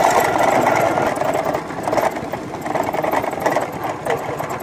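Small motorcycle engine running under way, a fast even putter heard from the rider's seat. It eases a little from about a second and a half in.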